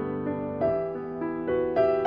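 Background piano music: a slow, gentle melody of struck notes that fade, a new note or chord every half second or so.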